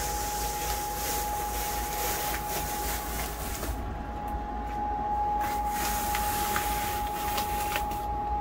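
Old, water-damaged boat headliner fabric being pulled and torn away from the cabin ceiling: rustling and tearing in two long stretches with a few small clicks. A steady high-pitched hum runs underneath.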